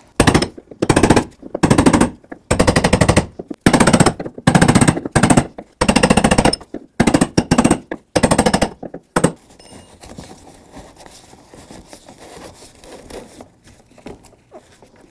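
A small hammer rapidly tapping a brass punch against the plastic lock ring of a fuel pump module, driving the ring counterclockwise to loosen it from the plastic fuel tank. The strikes come in quick bursts of many sharp taps, about ten bursts with short pauses between them. They stop about nine seconds in and give way to faint handling of the loosened ring.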